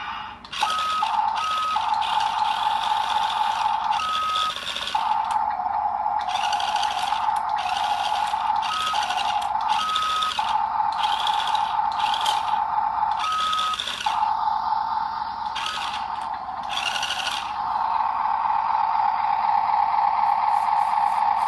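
Small electric motors and gearing of a radio-controlled toy dump truck whirring in a series of short bursts, over a steady high-pitched whine.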